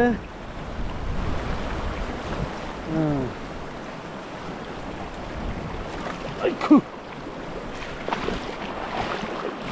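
River water rushing steadily over rocks, a constant hiss. Two short calls from a person's voice cut through it, about a third of the way in and again past halfway, the second one louder.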